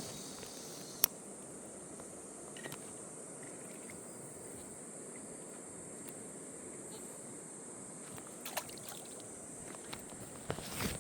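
A steady, high-pitched insect chorus of crickets over the running water of a stream, with a few sharp clicks or splashes: one about a second in and a cluster near the end.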